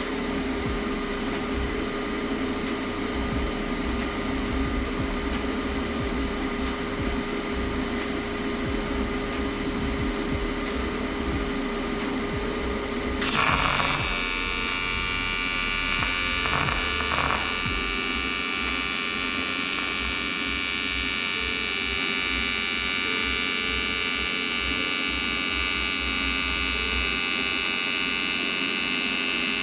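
Steady background hum with faint regular ticks. About 13 seconds in, the AC TIG arc of an AHP Alpha TIG 201XD strikes on aluminum and buzzes steadily to the end as a bead is laid.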